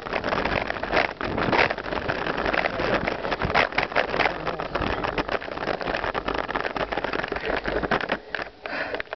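Mountain bike riding fast down a dirt trail: constant rattling and knocking of the bike over bumps, with tyre and wind noise on the camera. It dies down about eight seconds in as the bike slows.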